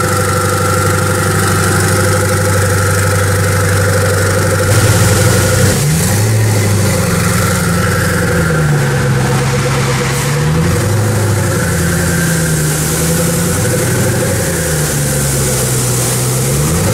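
Koenigsegg Agera R's twin-turbo V8 idling in an underground car park, a steady low note that, from about a third of the way in, slowly rises and falls in pitch several times.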